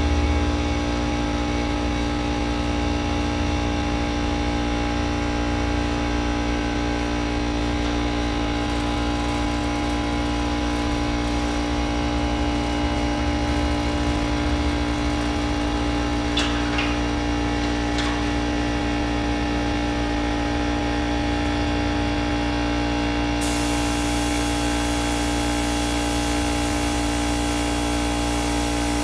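Steady hum of an electric motor running at a constant pitch, with a hiss of air joining in about three-quarters of the way through.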